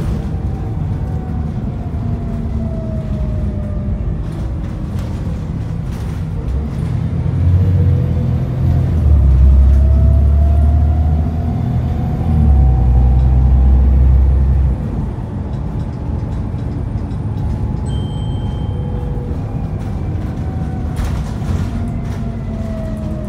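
Ride inside an Alexander ALX400 double-decker bus on the move: the diesel drivetrain runs with a steady rumble that swells much heavier for several seconds midway while the bus pulls under load, then drops back. Thin whines rise and fall in pitch with the drive.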